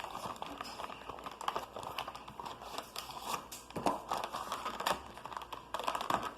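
Packaging of a Pokémon trading card game deck box being opened and handled: crinkling and rustling with many small clicks.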